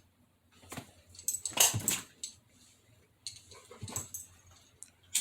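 A pet dog making noises during play, in several short bursts, the loudest about a second and a half in, with a sharp click at the end.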